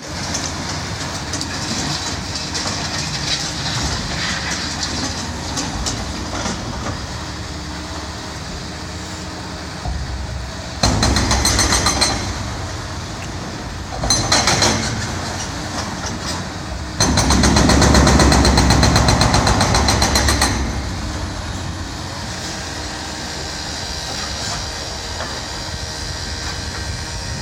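Hydraulic hammer on a Cat excavator pounding concrete in three spells of rapid blows, the last and longest lasting about three and a half seconds, over steady street traffic noise.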